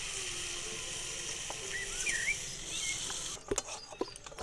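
Birds chirping over a steady hiss. About three and a half seconds in the hiss cuts off and a wooden rolling pin knocks and clicks against the rolling board as dough is rolled out.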